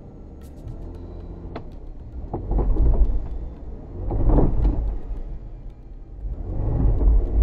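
Jeep Wrangler JKU engine revved in three swells as the Jeep, in two-wheel drive, sits stuck on a muddy slope with its rear tires spinning. One rear wheel spins before the other kicks in, the sign of a limited-slip rear differential.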